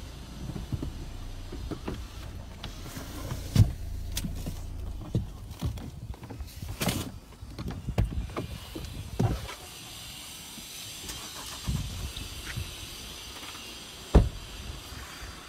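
Car driving on a wet road in the rain, heard from inside: a steady low rumble, heavier in the first few seconds, broken by irregular sharp thumps, the loudest about three and a half seconds in and near the end.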